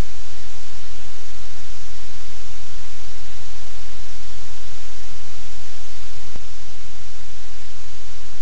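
Loud, steady static hiss with a low electrical hum underneath, unchanging throughout; no animal or household sound stands out above it.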